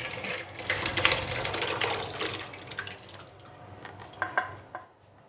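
Thick sambar pouring out of a pressure cooker into a stainless steel pan, splashing and gurgling as it fills, the flow tapering off over the last couple of seconds. A few light knocks sound about four seconds in.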